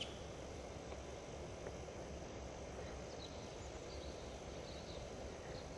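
Steady low outdoor background rumble with a few faint, short, high chirps from about three seconds in, and a brief click right at the start.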